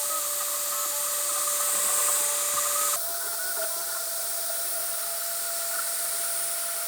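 3D printer running mid-print: a steady hiss of cooling fans with a steady motor whine. The whine jumps a little higher in pitch about three seconds in.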